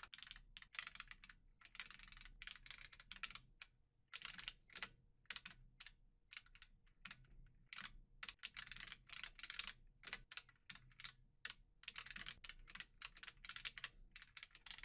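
Faint keystrokes on a computer keyboard, typing in quick, irregular runs with short pauses between them.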